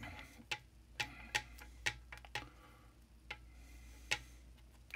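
Tape being peeled and unwound from soldered fan wires: a string of about eight irregular sharp clicks and crackles over a low steady hum.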